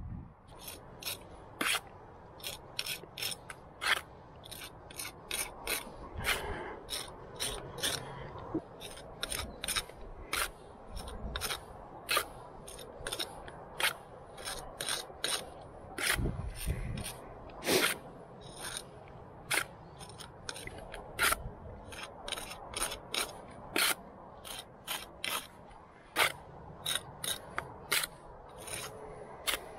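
Steel pointing tool scraping and clicking as fresh mortar is worked into brick joints and taken off the trowel: short, sharp scrapes, one or two a second, in an irregular rhythm.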